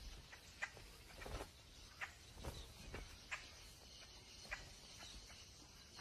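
Vultures pecking at the tough hide of a large rodent carcass: faint, scattered taps, about one every half second to second, over quiet ambience.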